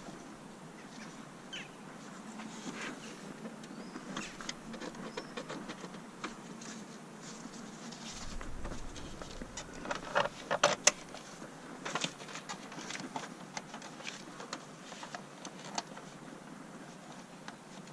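Hand work on an engine bay: scattered clicks and light knocks of tools and parts being handled, with a quick run of sharper, louder clicks about ten seconds in.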